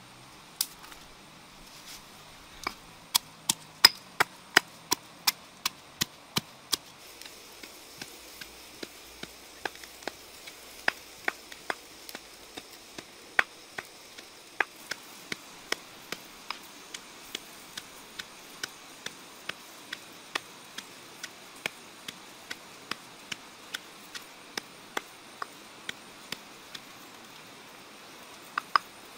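Stone pestle pounding red chillies in a stone mortar: a steady rhythm of sharp knocks, about two a second, loudest in the first several seconds.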